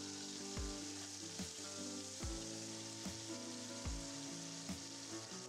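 Chunks of beef searing in hot oil and butter in a cast iron pot, a steady sizzle, with background music playing under it.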